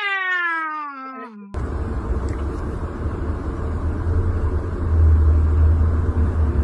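A cat's drawn-out meow, falling in pitch, for about the first second and a half, then an abrupt switch to a steady low rumble.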